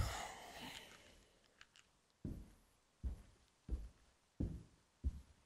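A thump and rustle as a man pushes himself up off an upholstered sofa, then his footsteps walking away at a slow, even pace from about two seconds in, roughly three steps every two seconds.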